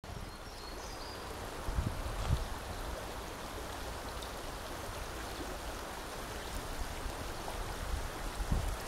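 Shallow, rocky creek rippling and babbling over stones, a steady rush of water. A few low thumps stand out about two seconds in and again near the end.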